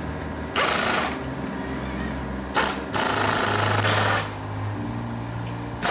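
Pneumatic impact wrench rattling in bursts on a car wheel's lug nuts: a half-second burst about half a second in, a brief one at about two and a half seconds, then a longer burst of over a second.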